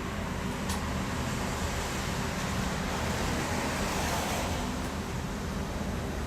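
Steady hiss of rain, with a car passing on the wet road that swells to its loudest about four seconds in and then fades.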